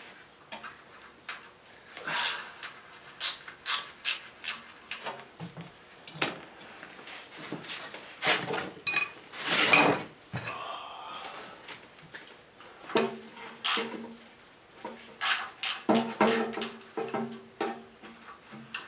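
Irregular metallic clicks, knocks and clinks of hand tools working on the engine block while bolts are taken out, over music playing in the background.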